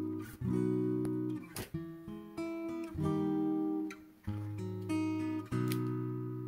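Background music: an acoustic guitar strumming chords that change about once a second.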